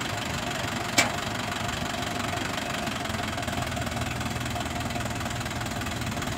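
Tractor diesel engine running steadily, with a single sharp click about a second in.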